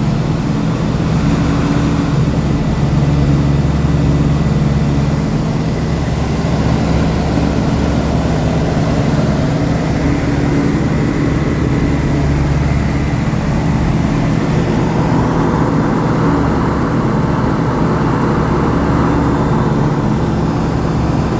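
Light aircraft's piston engine and propeller running steadily, a loud constant drone with no change in pitch.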